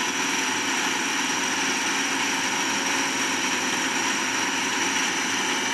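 Turbine driven by the reactor's steam and hot air, running at speed: a steady rushing noise with a thin, steady high whine, heard as played back in a lecture room.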